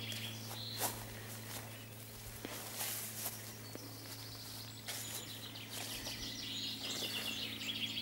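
Small birds singing in the background, with a rapid run of high notes about five seconds in, over a few soft steps through long grass and a steady low hum.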